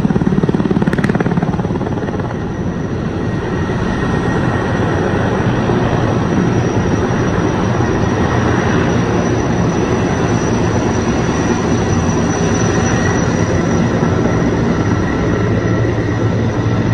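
Sikorsky S-64 Skycrane heavy-lift helicopter flying with a chiller slung beneath it, its rotor running with a steady rapid chop.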